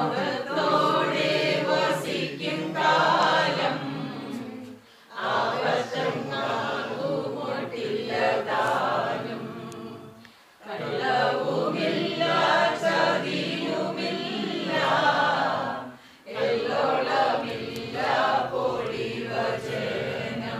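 A group of voices singing together, in long phrases with brief pauses between them about every five to six seconds.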